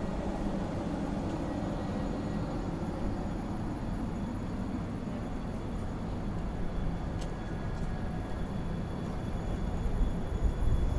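A train at a station platform: a steady low rumble with faint high whines, and a few louder low thumps near the end.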